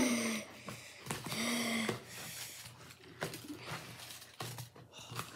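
A boy's short wordless vocal sounds, twice in the first two seconds, followed by faint clicks and rustling.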